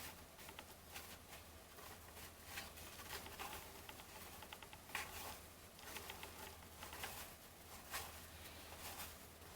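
Faint soft flicks and rustles of baseball trading cards being slid and flipped through by hand, one every second or so, over a low steady electrical hum.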